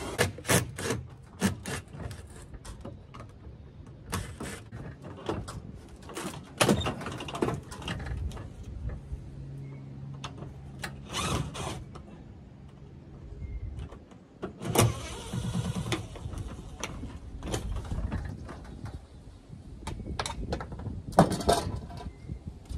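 Wind rumbling on the microphone, with irregular clicks, knocks and clatter from hand work on a pop-up camper's metal roof corner as a cover is taken off.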